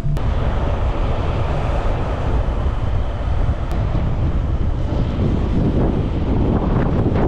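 Wind rushing over the microphone, a loud steady rumble, with road noise from a van driving.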